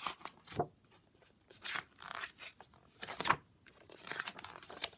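Paper rustling and crinkling in several short bursts, the loudest a little after the middle: pages of a picture book being handled and turned.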